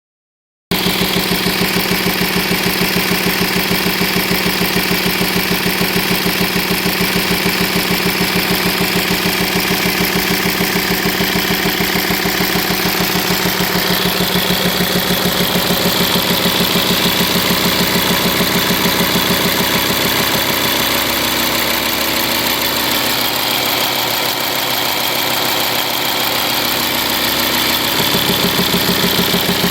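Five-cylinder 2.5 TDI diesel engine of a 2004 VW Touareg idling with a pulsing, booming miss, the sign of worn camshaft lobes and followers. The low boom weakens about two-thirds of the way through and comes back near the end.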